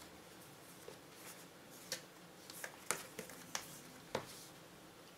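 A cardboard product box handled and turned over on a tabletop: a handful of faint, short taps and scrapes of cardboard, bunched between about two seconds in and just past four seconds.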